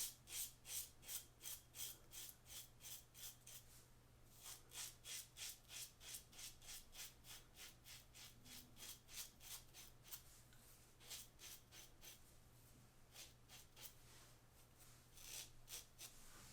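Faint scraping of a RazoRock Lupo 72 double-edge safety razor cutting through lathered stubble, in quick short strokes about three a second, coming in runs with brief pauses between.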